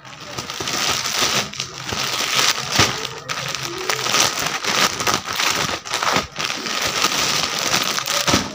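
Plastic packaging crinkling and rustling as T-shirts are unwrapped and handled, a dense crackly rustle with a few short breaks.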